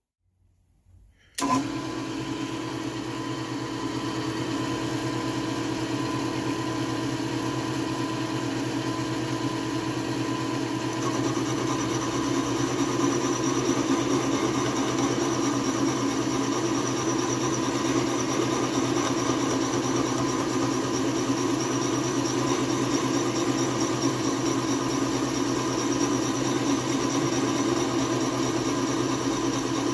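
Milling machine running with a Criterion boring head, boring out a hole in a metal plate: a steady machine hum with several held tones. It starts abruptly about a second and a half in and grows a little louder around eleven seconds in.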